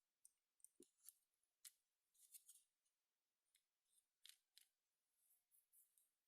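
Faint, irregular small clicks and light scrapes of small plastic parts and tools being handled during a mouse scroll-wheel repair, with one duller knock about a second in.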